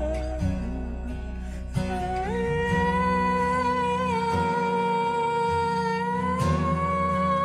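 Slowed-down, reverb-heavy song: a long held vocal note over guitar accompaniment, its pitch stepping up about two seconds in and rising again near the end.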